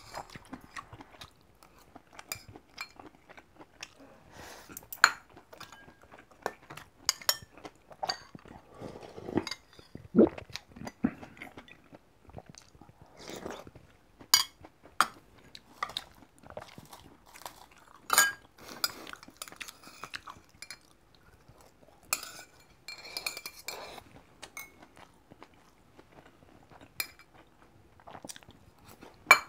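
Close-up eating sounds: chewing and crunching of food, with metal chopsticks and a spoon clinking sharply against a stainless steel rice bowl and dishes many times.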